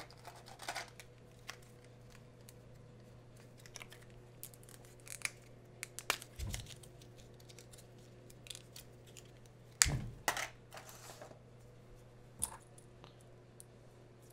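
Scattered small clicks, taps and light rustles of hand tools being picked up and set down on a workbench, the sharpest a quick double click about ten seconds in, over a faint steady electrical hum.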